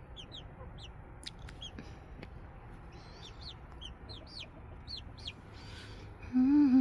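Young chickens peeping: short, high chirps scattered throughout, coming more often in the second half.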